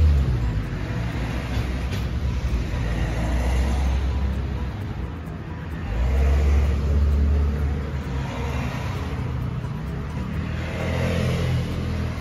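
Road traffic: cars passing with a low rumble, the noise swelling and fading every few seconds.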